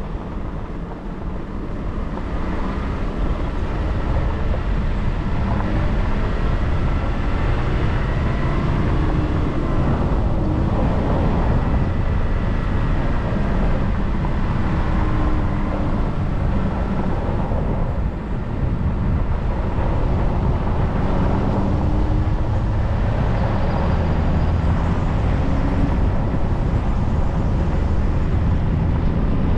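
Car driving on an unsealed dirt and gravel road: a steady rumble of tyres on the loose surface mixed with engine noise, which grows louder about two seconds in and then holds steady.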